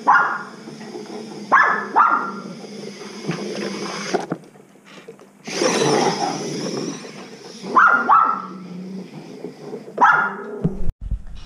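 Small dogs barking in short, sharp single barks: one at the start, a pair about two seconds in, and more about eight and ten seconds in, with a noisier stretch of sound in the middle.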